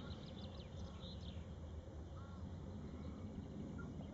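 Small birds chirping with short, high calls over a steady low outdoor rumble.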